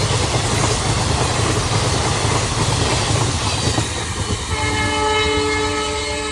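A train running past with a heavy rumble and wheel noise. About four and a half seconds in, a locomotive's horn starts: a steady chord of several notes held through to the end.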